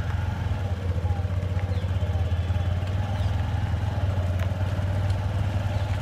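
Motorcycle engine idling with a steady, even low note that does not change.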